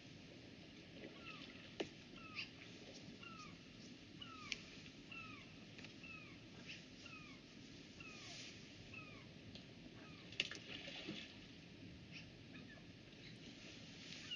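Gulls giving a run of faint, short mewing calls that fall in pitch, about two a second, over the low steady rush of the river; the calls stop about nine seconds in. A few sharp clicks cut through, the loudest about ten seconds in.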